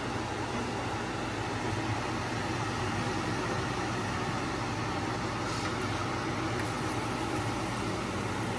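Over-the-range microwave's vent fan running over a gas stove: a steady hum and airy hiss.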